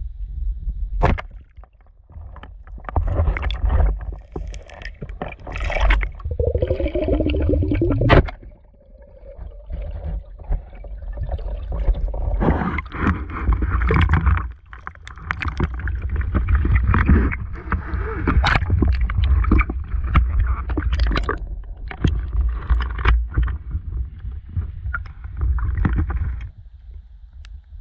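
Water gurgling and sloshing against the camera, with a heavy low rumble and irregular surges of splashy noise.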